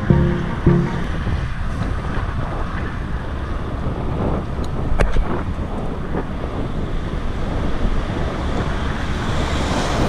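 Steady rush of wind on the microphone over the low rumble of a moving vehicle, with a couple of sharp knocks about five seconds in.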